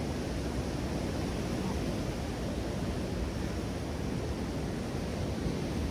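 Steady wash of ocean surf with wind, an even noise without distinct events.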